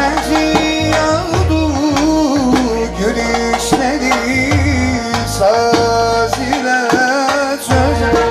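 Live Turkish folk music: a male singer's ornamented melody with bağlama and keyboard over a heavy, steady drum beat.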